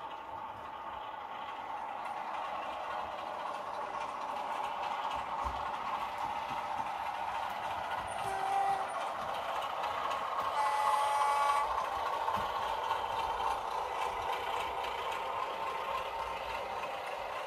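Sound-fitted OO-gauge Heljan Class 33 model diesel locomotive's sound decoder playing diesel engine running sound through its small speaker, slowly getting louder. A short horn tone sounds about 8 seconds in and a longer one about 11 seconds in.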